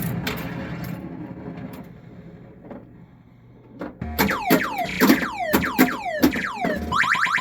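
Electronic sound effects from a 1979 Williams Flash pinball machine's sound board. A fading noisy sound gives way to a quiet spell; about four seconds in comes a string of falling-pitch sweeps, roughly three a second, and near the end a fast run of short rising sweeps.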